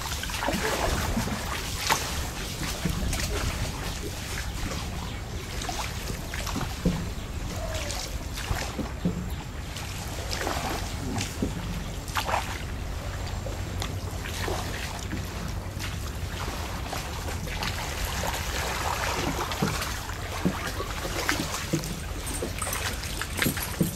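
Wooden hand paddles dipping and splashing in the canal water at irregular strokes, with water sloshing around the small rowboats and wind rumbling on the microphone.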